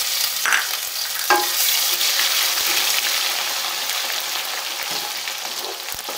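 Ginger-garlic paste sizzling hard in hot ghee in an aluminium pot as it is stirred with a wooden spatula, with a couple of knocks against the pot in the first second and a half. The sizzle eases slowly as the paste begins to fry.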